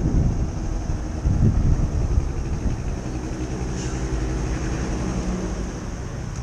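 Motor scooter's small engine as it rolls to a stop, with wind rumbling on the microphone for the first couple of seconds, then idling steadily.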